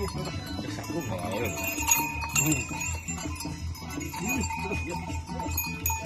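Bells on a horse's harness jingling and ringing, with a few small clicks.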